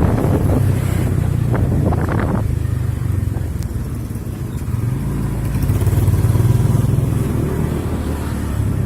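Motorcycle engine running steadily while riding, getting louder about midway. Wind buffets the microphone in the first couple of seconds.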